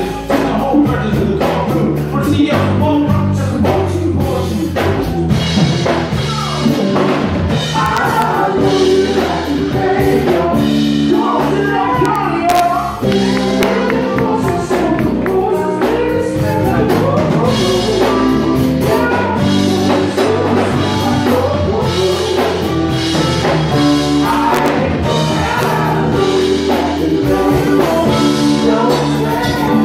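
Live band playing a song: a lead vocalist singing over electric guitar, keyboard and drum kit, loud and steady.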